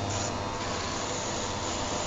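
Electric rotary shaver running with a steady buzz over a low mains hum, mixed with the even whir of an electric fan heater.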